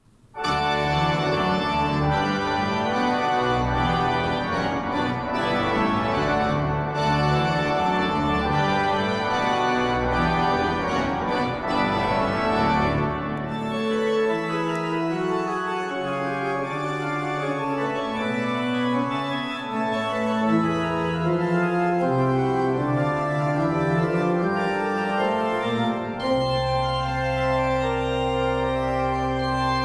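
Church pipe organ playing a piece: it starts suddenly with a full, busy many-voiced passage over a strong bass, thins to a lighter texture about halfway through, and settles into a long held chord with deep pedal bass near the end.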